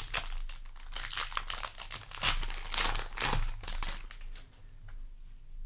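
Foil booster-pack wrapper crinkling and crackling as it is handled and torn, dense for about four seconds and then fainter.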